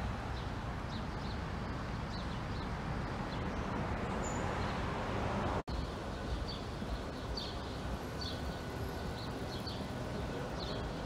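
Street ambience: a steady hum of traffic with small birds chirping again and again, briefly cut off about halfway through.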